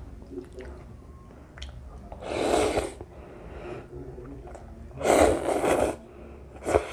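A person slurping instant cheese ramen noodles off a fork: two long, loud slurps, a few seconds apart, and a short one near the end, with soft chewing and mouth clicks between them.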